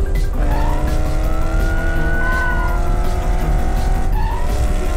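Cartoon race car engine sound effect running steadily, with a high tone that rises and falls about two seconds in.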